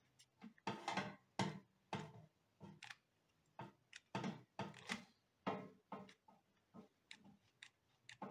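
Small plastic Parkside hot glue gun being handled: irregular light clicks and knocks from its plastic body and folding wire stand.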